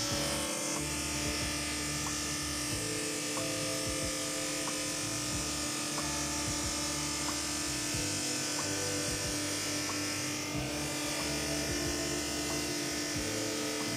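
JIB 21106 drum sander running steadily: a constant motor and drum hum while its conveyor belt carries a wooden panel under the sanding drum. Background music plays with it.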